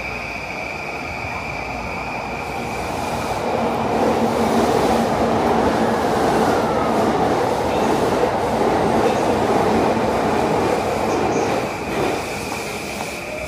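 A JR Yamanote Line electric commuter train running past the platform. Its rumble and rail noise swell a few seconds in, hold for several seconds and then drop away near the end, with a falling whine partway through.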